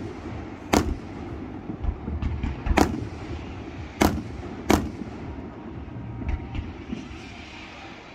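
Aerial firework shells bursting overhead: five sharp bangs within the first five seconds, then a few fainter pops.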